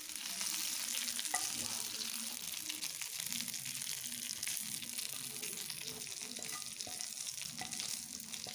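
Hot coconut oil sizzling in a frying pan with fish frying in it: a steady hiss with fine crackling.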